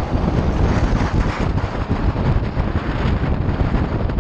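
Steady wind buffeting on the camera microphone while riding an electric motorcycle at road speed.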